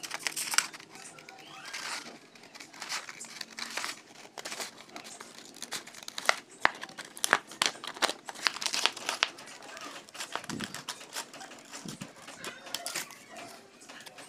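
Scissors cutting through a sheet of white paper: a run of sharp, irregular snips with the paper rustling and crinkling between them.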